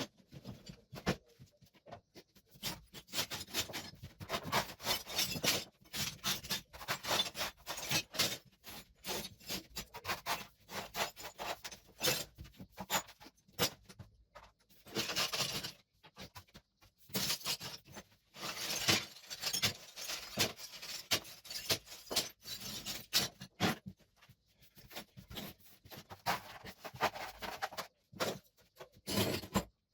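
Hand tools scraping and chipping at old wall tiles and their backing: an irregular run of short scrapes and sharp clicks with brief pauses.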